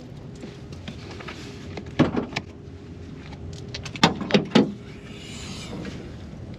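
Car door of a Mercedes-AMG GLS 63 shut with a knock about two seconds in. Two seconds later come three sharp clacks as the hood latch is released and the hood lifted, then a brief hiss, over a faint steady hum.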